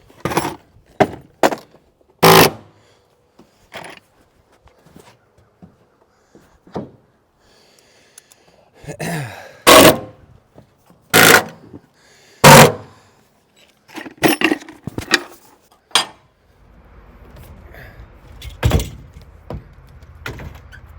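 A string of sharp knocks and clanks from gear and tooling being handled and loaded, with four loud bangs among them. A low steady rumble comes in about three quarters of the way through.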